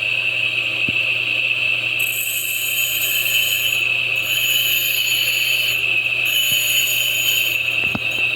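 Homemade bench grinder driven by a washing-machine motor, running steadily with a constant hum. From about two seconds in, a higher-pitched grinding noise comes and goes in spells, as metal is pressed against the wheel.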